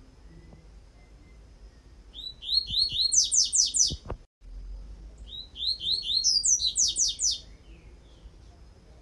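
Caged double-collared seedeater (coleiro) singing its 'tui tui' song: two phrases of rapid repeated whistled notes, about five a second, each starting lower and moving higher. A short break with a brief click falls between the phrases.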